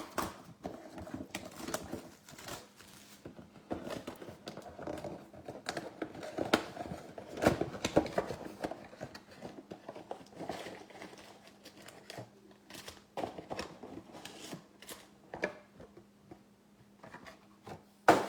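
A cardboard trading-card box being handled and opened by hand, with irregular crinkling, tearing and clicking of cardboard and wrapper, and a sharp click near the end. A faint steady hum runs underneath.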